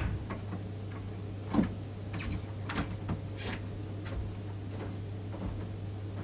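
Irregular short clicks and knocks, about a dozen, the loudest a thud about one and a half seconds in, over a steady low hum.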